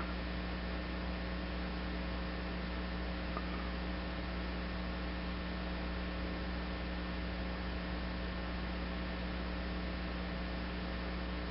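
Steady electrical hum under a background hiss, unchanging throughout, with no work sounds.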